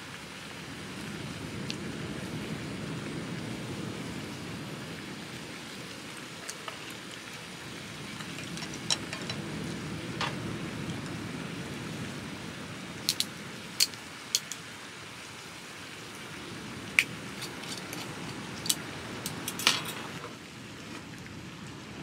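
Scallops steaming in their shells in a pan, under a steady low rushing noise. About a dozen sharp clicks, most of them in the second half, come from wooden chopsticks and a spoon knocking against the scallop shells and the pan.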